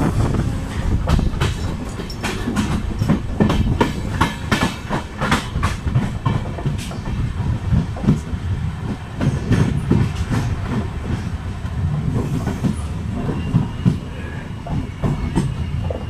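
Passenger coach wheels clattering over rail joints and points as an express train rolls slowly into a station, heard from an open coach doorway with a low rumble of running gear and air. A faint high squeal of the wheels or brakes starts near the end.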